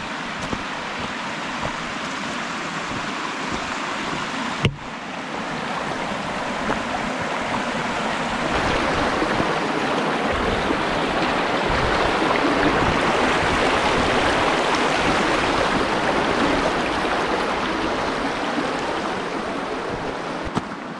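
Rocky mountain creek rushing over boulders: a steady roar of running water that swells louder in the middle and eases near the end. A single sharp click comes about four and a half seconds in.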